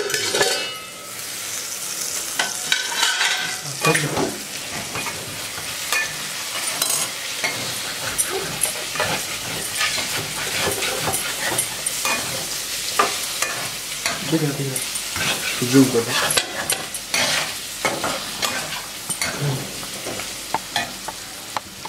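Steady sizzling hiss, dotted with many small crackles and clicks, from a freshly rotisserie-roasted whole chicken as its skewer is pulled out on the plate.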